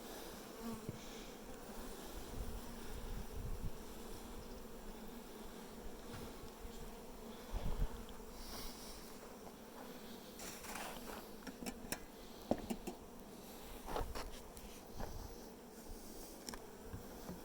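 Honeybees buzzing in a steady hum around open hives, with a few scattered short clicks and knocks.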